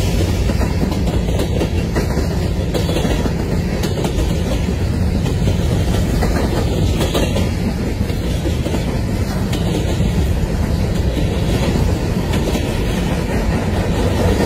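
Freight train of covered hopper cars rolling past at close range: a steady, loud rumble of steel wheels on rail, with scattered clicks as the wheels pass over rail joints.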